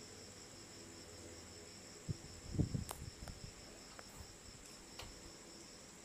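Steady high chirping of insects, likely crickets. A few knocks and a louder thump come about two to three seconds in, with single clicks later.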